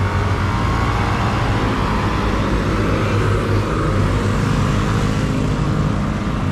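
Steady rush of wind and road traffic noise with a strong low rumble, picked up by a GoPro on a moving bike.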